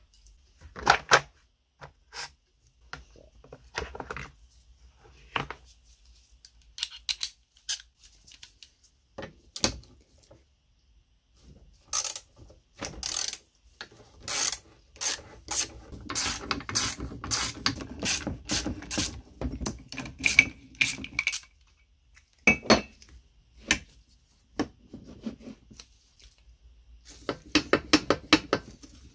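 Steel hand tools clinking, knocking and scraping against the cast iron base of an antique meat slicer as pins and fittings are worked loose, with scattered single clicks and runs of rapid clicking in the middle and near the end.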